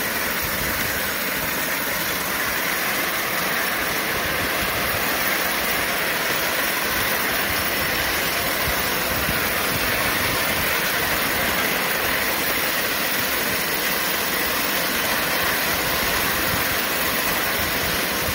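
5-inch gauge live-steam B1 locomotive running along the track, a steady hiss and rolling noise without a clear beat.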